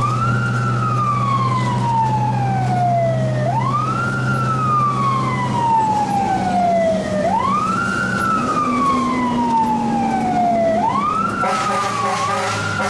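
Fire truck siren wailing, heard from inside the cab: the pitch sweeps up quickly and then falls slowly, about every three and a half seconds, over the truck's engine drone. Near the end a steady, lower blaring tone joins the wail.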